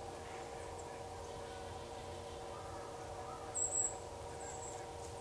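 Woodland ambience: a steady hum of several tones, with a short, high-pitched chirp about three and a half seconds in and a fainter one a second later.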